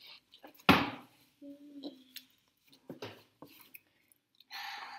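Close-up eating noises from noodles in paper cups and metal forks: a sudden loud knock about a second in, then scattered small clicks. Near the end there is a short hissing intake of breath or noodles.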